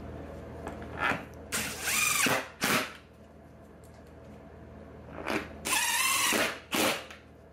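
DeWalt 20V cordless impact driver tightening the bolts that hold the seat hinge brackets to the wooden seat base. It runs twice, about a second in and again about five seconds in. Each run lasts a couple of seconds, with short blips at its start and end and a wavering pitch in between.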